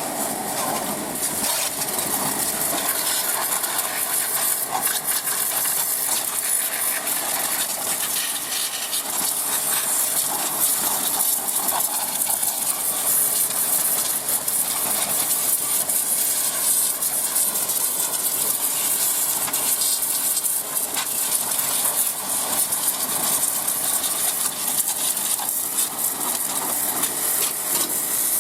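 High-pressure water spraying from a pressure washer: a steady hiss with fine crackling spatter.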